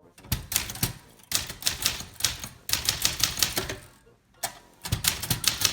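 Manual typewriter being typed on in quick runs of keystrokes, each type bar striking with a sharp clack, in four bursts with short pauses between them.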